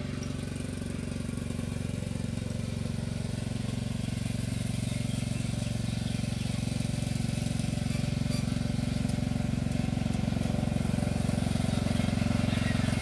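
Riding lawn mower's engine running steadily as it drives along, growing gradually louder as it comes closer.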